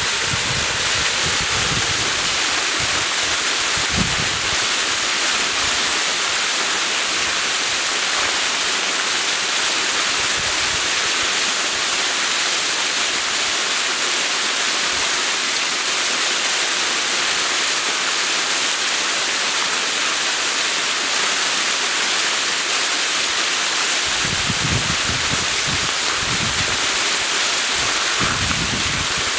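Waterfall rushing in a steady, loud hiss. Wind buffets the microphone with low rumbles at the start, briefly about four seconds in, and again near the end.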